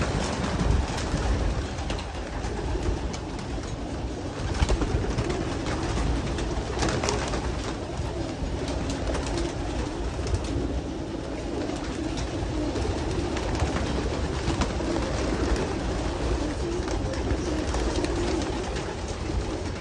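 A loft full of racing pigeons cooing together in a continuous murmur, with short wing flaps and clatter now and then as birds take off and land.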